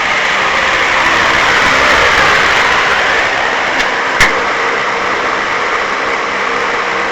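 Electric power tool running steadily, cutting through the van's metal roof around the vent opening, with one sharp click about four seconds in.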